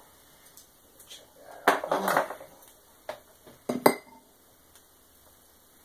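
Small metal tools and parts clinking and knocking against a wooden workbench as they are handled and set down: a quick cluster of knocks about two seconds in, then a few sharp clicks a little before four seconds.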